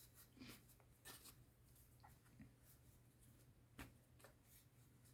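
Near silence with faint rustles and light taps of paper being handled and laid on a journal page, one sharper tap a little before four seconds in, over a low steady hum.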